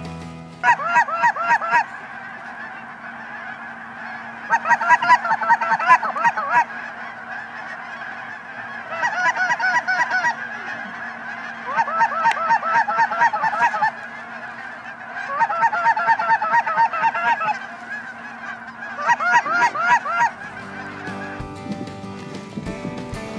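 Canada geese honking in six bursts of rapid calls, each a second or two long, separated by short pauses, with a faint steady hum underneath.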